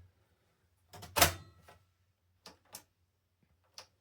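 Plastic clicks and knocks from the front panel of an HP Compaq small-form-factor desktop case being pushed back into place. One loud knock comes about a second in, then a few lighter clicks.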